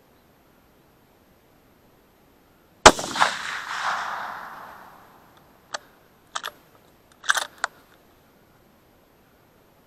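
A single rifle shot from a .308 Win carabine: one sharp crack about three seconds in, with its echo rolling on and dying away over about two seconds. A few seconds later come several short sharp metallic clicks in three quick groups, typical of the rifle's action being worked to chamber another round.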